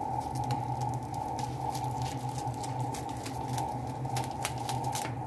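Scissors snipping through plastic cling film and the film crinkling: a run of short sharp clicks and rustles over a steady background hum.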